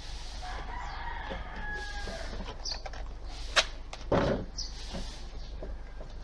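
A short rip of tape being pulled off a roll about four seconds in, just after a sharp click; a rooster crows faintly in the background during the first couple of seconds.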